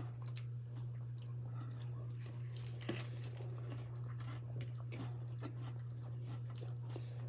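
A person chewing food close to the microphone, with small wet smacks and light crunches scattered irregularly. A steady low electrical hum sits underneath.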